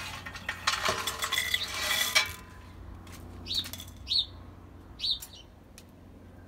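Plastic basket drawer of a Power XL Vortex air fryer being handled and slid against the fryer body, with a rattling scrape lasting about a second and a half. After it come three short, falling bird chirps.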